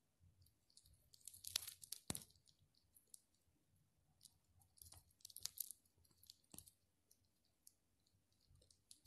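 Phone handling noise, faint: fingers tapping and brushing a smartphone close to its microphone, heard as scattered clicks and crackles over near silence. The clicks come in a cluster about one and a half to two seconds in, another around five seconds in, and a last tick shortly after.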